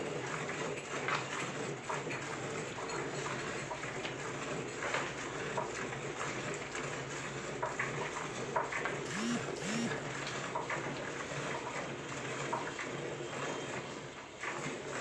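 Hand milking of an Indian desi cow: jets of milk squirting from the teats into a steel bucket, a run of short, irregular squirts over a steady wash of sound.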